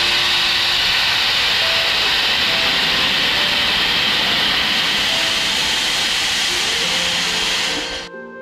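Steam locomotive letting off steam: a loud, steady hiss that cuts off suddenly near the end. Gentle background music fades in shortly before the cut.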